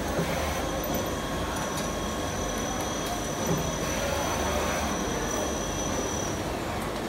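Four-colour servo-driven pad printing machine running: a steady mechanical hum and hiss with a thin high whine through most of it and a few light clicks.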